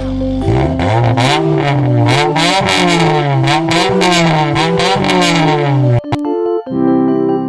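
An engine revving up and down over and over, its pitch climbing and falling about once a second, for about six seconds; then keyboard music comes back in.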